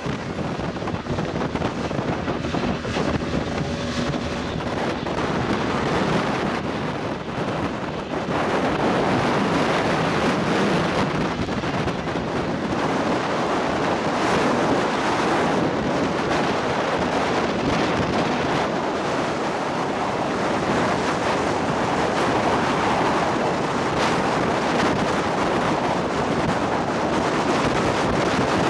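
Wind buffeting the microphone and water rushing past the hull of a small open motorboat running at speed, with no clear engine note above it. The noise grows louder about eight seconds in.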